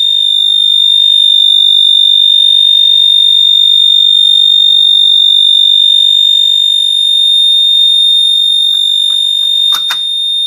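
Two Wheelock MIZ-24-LSM fire alarm mini horn-strobes sounding a continuous, loud, high-pitched electronic tone, unbroken rather than pulsed. A couple of short clicks come near the end.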